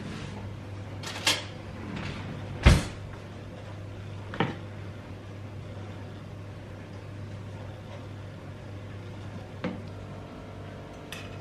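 Kitchen knocks and clatter, like cupboard doors and utensils being handled. There are five separate knocks, the loudest about two and a half seconds in, over a steady low hum.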